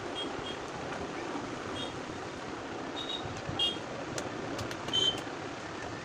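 Steady background noise with several short, high chirps scattered through it and a few sharp clicks in the second half.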